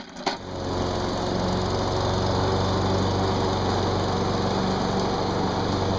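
Small gasoline walk-behind lawn mower engine running steadily at an even speed, after a brief scuffling noise at the very start.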